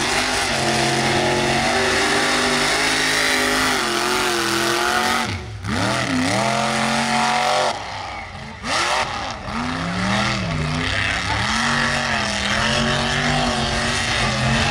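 Mud race truck engine revving hard, its pitch swooping down and climbing back up several times as the throttle is worked, with brief lulls about a third of the way in and just past halfway.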